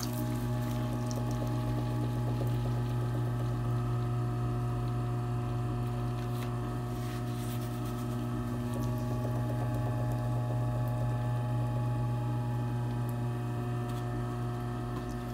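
Electric pottery wheel running with a steady motor hum, under a faint wet squishing of grogged clay being pressed and shaped by hand on the spinning wheel head.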